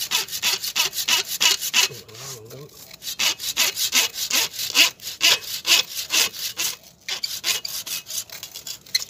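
A hand saw cutting through the woody root of a Melastoma (hoa mua) stump, in quick back-and-forth rasping strokes about five a second. The sawing stops briefly about two seconds in and comes more slowly near the end.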